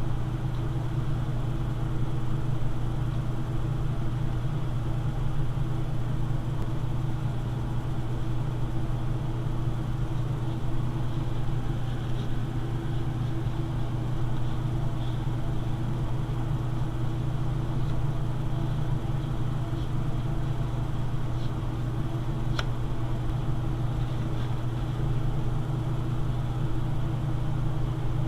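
A steady low hum, as from a fan or motor running in the room, with one sharp click about twenty-two seconds in.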